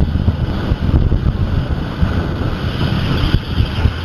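Wind buffeting the microphone in irregular low gusts during a ride on the Maverick roller coaster, over the steady rushing rumble of the train running along its track.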